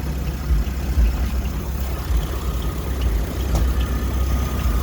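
Mini truck engine idling with a steady low rumble.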